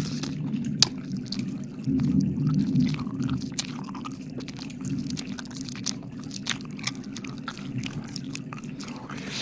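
Wet mouth sounds close to the microphone: licking and smacking with many small sticky clicks, over a steady low hum that swells briefly about two seconds in.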